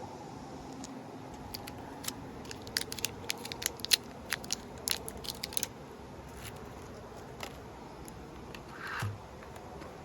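Packaging being popped open by hand: a quick run of sharp clicks and crackles for about four seconds, then a single soft rustle near the end.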